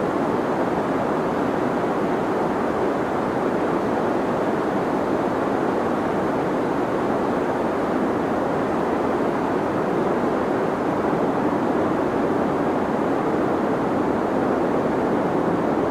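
Steady deep white noise: an even, unbroken rushing hiss, weighted low and muffled rather than bright.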